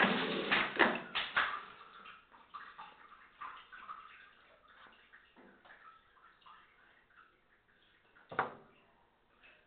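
A man snoring in his sleep: a long loud snore in the first second and a half, fainter breathing noises, then one short snort about eight seconds in.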